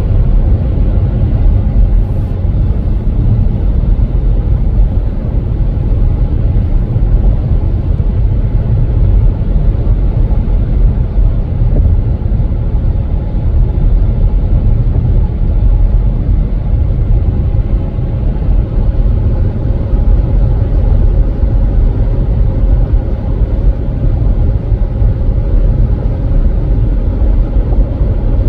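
Car driving at a steady pace: an even, low rumble of road and engine noise.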